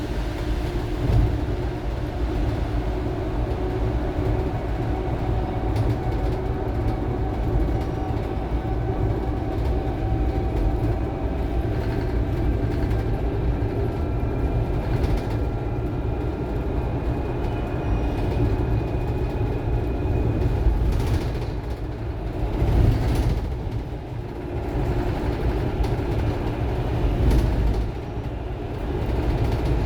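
Electric bus (RAC RAC-700 with a 6-speed automated manual gearbox) under way: low road rumble with the electric drive motor's whine, thin tones that slowly rise in pitch as it gathers speed, and a few louder bumps in the last third. The motor is making an abnormal noise.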